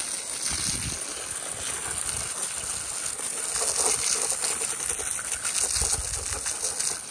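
Garden hose spraying water onto a skinned elk skull and the grass beneath it, a steady hiss.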